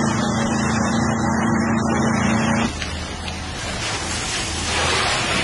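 An engine runs with a steady hum. About two and a half seconds in, this cuts abruptly to the even rushing noise of a large fire burning.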